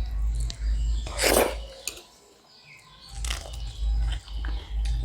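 A person chewing food close to the microphone in a steady rhythm, with a loud crunchy bite about a second in and another after a short pause.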